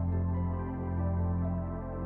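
Background music: slow, calm ambient instrumental with long sustained low notes.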